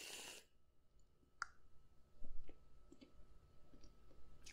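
Aerosol whipped-cream can hissing for about half a second as it sprays into the mouth, then faint wet mouth clicks and lip smacks close to the microphone, with a soft low thump a little over two seconds in.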